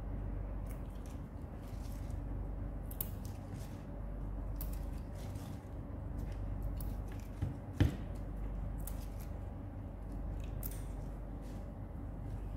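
Fresh arugula (gergir) being picked over by hand in a plastic basin: irregular crisp clicks and leaf rustles as leaves and stems are handled and pulled off, over a steady low hum. One louder knock comes about eight seconds in.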